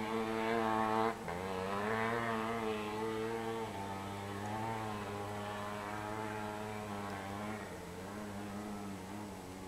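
Kawasaki KX500 single-cylinder two-stroke dirt bike engine running hard under load up a steep cinder hill, its note wavering in pitch. The engine briefly drops about a second in, then picks up again and slowly fades toward the end.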